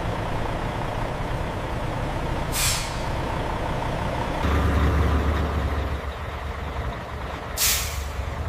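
Heavy truck engine running with a steady low rumble, with two short air-brake hisses, one about two and a half seconds in and one near the end.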